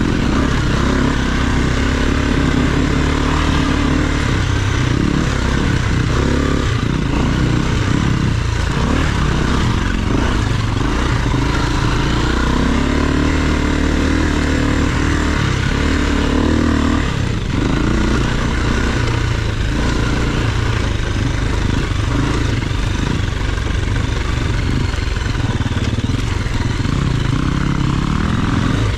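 KTM enduro dirt bike engine running close up, heard from the rider's seat, its revs rising and falling steadily with the throttle as it climbs a rocky trail. Wind noise and rattling from the bike run under it.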